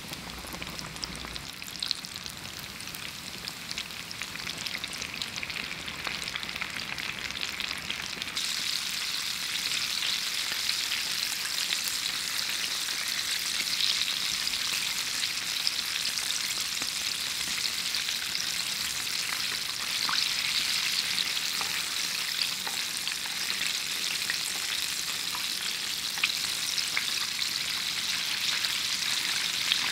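Battered chicken pieces deep-frying in hot oil, a dense steady sizzling and crackling that gets louder about eight seconds in.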